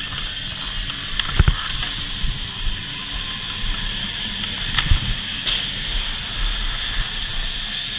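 Ice skates scraping and gliding on rink ice, with wind noise on a body-worn camera. There are a few sharp knocks of a hockey stick on the puck, the loudest about a second and a half in and again about five seconds in.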